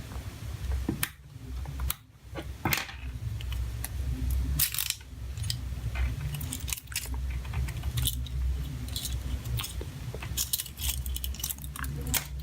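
Irregular small clicks and light metallic clinks of tools and small parts being handled, over a low steady hum.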